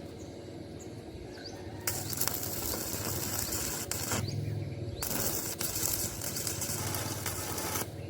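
Electric arc welding on steel square tube: the arc crackles and hisses in two runs, about two seconds and then about three seconds long, with a short break between them.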